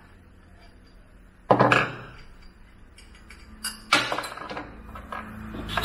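Metal parts of a borewell pump being handled and set down: a sharp metallic knock about a second and a half in, a few light clicks, then a second knock near four seconds.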